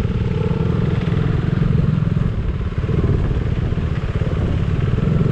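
KTM 390 Duke's single-cylinder engine running steadily under way.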